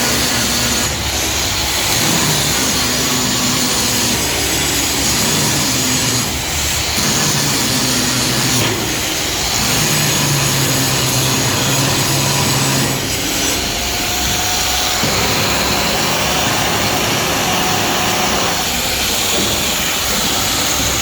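Stick (shielded metal arc) welding arc crackling and hissing steadily while a filler pass is laid with an E6013 electrode, over a low hum.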